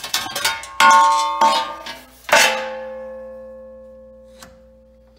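Metal pieces clattering and clanging together, with several quick knocks and then two hard strikes. The last strike leaves a bell-like ringing that fades slowly over about three seconds.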